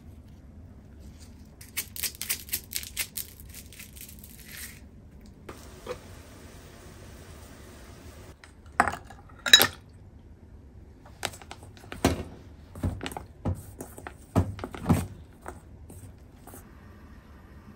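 Cooking sounds at a stainless steel bowl: a burst of crisp rustling, a few seconds of soft hiss, then two sharp ringing clinks, the second the loudest. A run of light knocks and taps follows as wooden chopsticks stir flour in the bowl.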